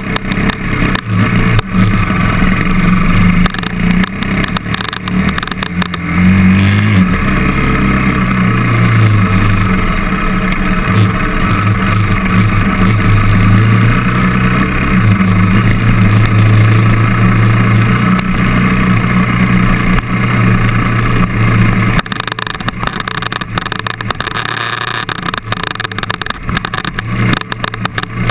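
KTM trail bike's engine running under throttle on a dirt track, close to the microphone. The engine note rises about six seconds in, holds steady, and drops away sharply about 22 seconds in.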